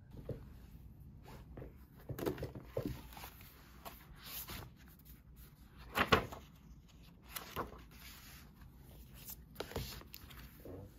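Handling sounds on a desk: objects set down with light knocks and a paper planner being moved and opened, with scattered rustles. The loudest knock comes about six seconds in.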